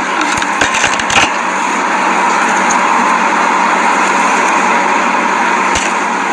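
Clear slime being squished close to the microphone: a quick run of small crackles and pops in the first second or so and one more pop near the end, over a steady loud hiss.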